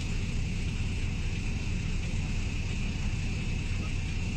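Steady low vehicle engine hum with a steady higher whine over it, from a slow tow through snow: an Audi 4x4 pulling a truck.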